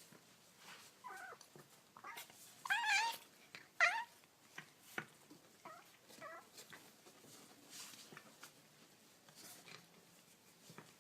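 A kitten mewing: about half a dozen short, high-pitched mews, the loudest around three to four seconds in, along with small clicks.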